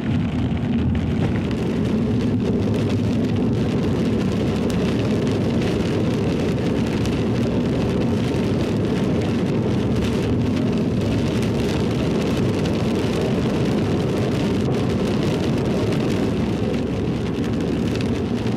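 Steady road and engine noise inside a moving vehicle, with light rain hitting the windshield.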